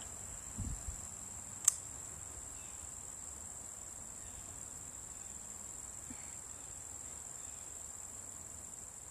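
Steady high-pitched insect trilling, like crickets, with one sharp click about two seconds in and a few soft low thumps just before it.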